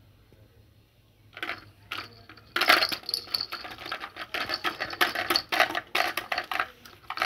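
Plastic toys rattling and clattering as they are handled: a fast, irregular run of sharp clicks that starts about a second in and stops near the end.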